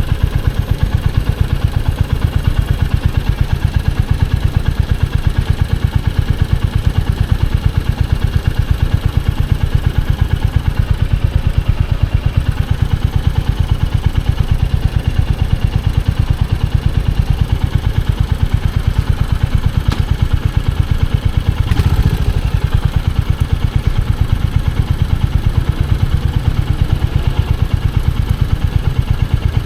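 Royal Enfield Hunter 350's single-cylinder engine running steadily, its exhaust beating in an even, unbroken rhythm with no revving. A brief knock about two-thirds of the way through.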